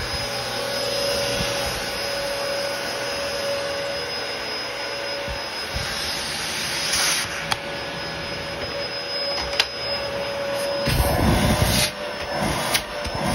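Dyson DC07 upright vacuum cleaner running steadily with its new hose fitted, a constant motor whine over the airflow noise: the machine is working with suction restored. Near the end come a few louder low bursts as the machine and its hose are handled.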